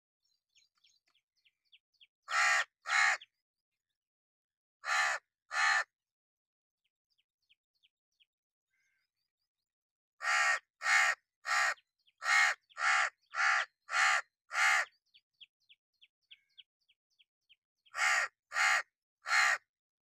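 A crow cawing in short runs: two caws, two more a couple of seconds later, a run of about eight about halfway through, and three more near the end.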